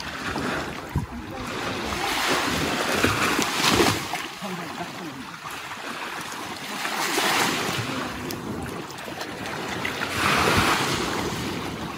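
Small waves breaking and washing up a sandy beach, swelling and fading about every three to four seconds, with wind buffeting the microphone.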